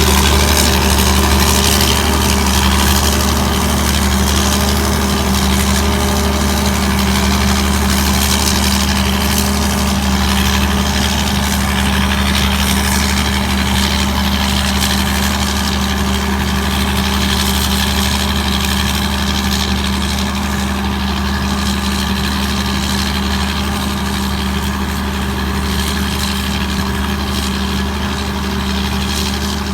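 Hino J08C six-cylinder diesel engine of a Tamco Pro S9000 combine harvester running at a steady speed with a constant low hum.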